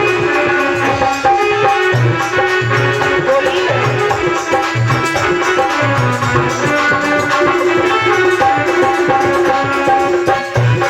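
Indian devotional folk music: a hand drum keeping a steady beat under held melodic notes.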